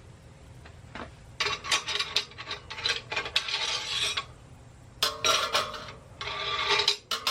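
Metal tire irons clinking and scraping against metal in three spells of a second or two each, with short bits of ringing, as they are set in to begin levering a motorcycle tire onto its rim.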